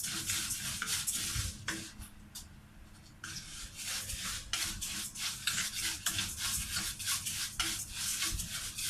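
A spoon stirring and scraping rice as it toasts in oil in a pot, in quick repeated strokes, with a short pause about two seconds in.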